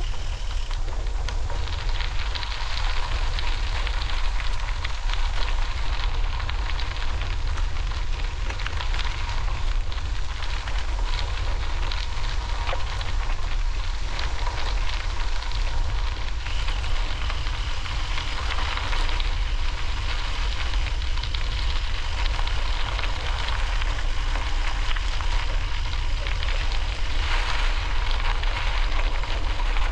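Bicycle tyres rolling steadily over a rough trail surface, a continuous crackle, with wind rumbling on the microphone.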